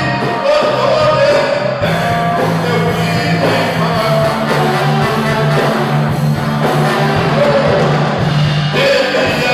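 A live rock band playing, with a singing voice over sustained bass and guitar.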